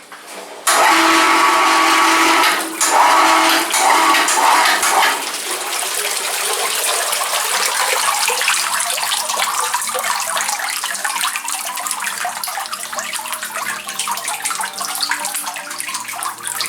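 Water spraying hard in a steady hiss. Over the first few seconds a machine's whine rides on top of it.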